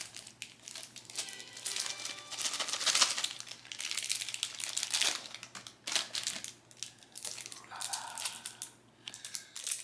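Packaging crinkling and rustling as it is handled and opened by hand, in irregular bursts.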